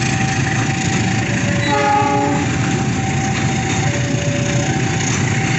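Freight train of tarpaulin-covered wagons rumbling past. A level-crossing alarm sounds two alternating tones throughout. About two seconds in, the diesel locomotive gives a short horn blast.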